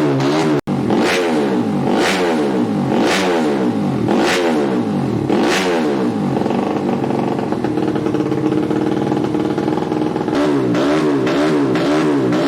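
Modified 130cc underbone motorcycle engine revved in about five quick throttle blips roughly a second apart, then held at a steady higher speed for several seconds, dropping back near the end to an uneven, wavering idle.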